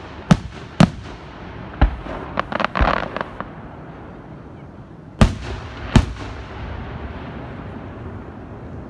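Aerial fireworks shells bursting: three sharp booms in the first two seconds, a quick run of crackling pops around three seconds in, then two more booms about five and six seconds in, each trailing off briefly.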